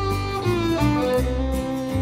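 Slow instrumental background music: a melody moving in steps over a held bass line, with no singing.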